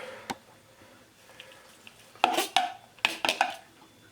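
A utensil clattering and scraping against a dish while coriander is added and mixed into shredded chicken: one sharp click about a third of a second in, then a cluster of clattering strikes from about two seconds in.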